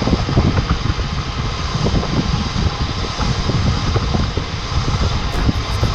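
2002 Chevrolet Avalanche 4x4 driving: a steady, rough rumble with scattered short knocks.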